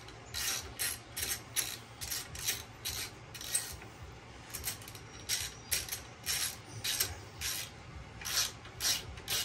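Socket ratchet wrench clicking in quick repeated strokes, about two to three a second with short pauses, as a bolt is backed out.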